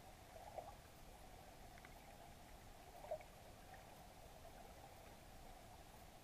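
Near silence under water, picked up through a submerged camera: a faint steady hum with two soft clicks, about half a second in and about three seconds in.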